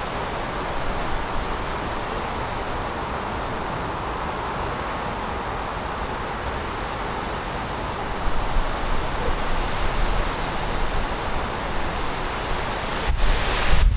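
Steady wash of distant city traffic noise. From about eight seconds in, wind gusts buffet the microphone with an uneven low rumble that grows stronger near the end.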